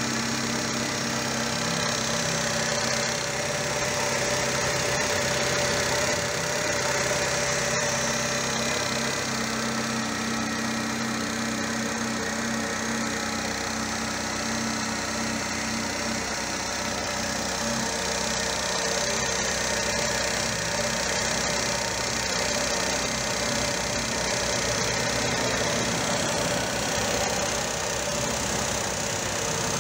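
VW Polo single-point-injection petrol engine idling steadily, heard close at the Bosch throttle-body injector unit.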